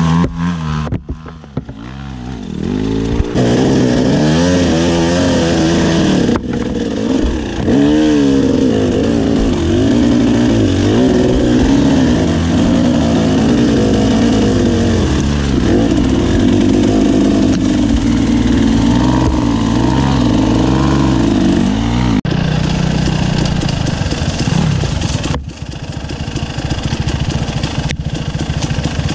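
KTM 300 two-stroke dirt bike engine revving up and down on a rough trail, its pitch rising and falling with the throttle. The sound breaks off abruptly a few times and resumes.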